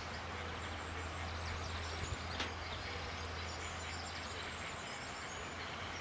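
Outdoor ambience by a pond: a steady low hum under an even hiss, with a few faint high chirps and one brief faint sound about two and a half seconds in.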